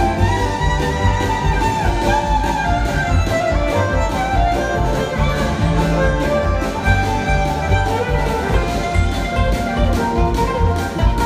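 Live band playing with a fiddle taking the lead line over bass and drums keeping a steady beat.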